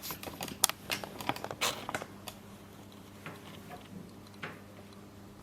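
Quick run of small clicks and knocks of metal parts being handled as the high-pressure hose fitting is put onto a PCP hand pump, thinning to a few scattered ticks after about two seconds.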